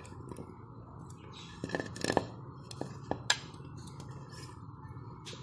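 Raw potato pieces being pushed off a plate into a clay pot of curry gravy, with scattered light clicks and taps of the plate and potatoes against the pot, loudest about two and three seconds in, over a steady low hum.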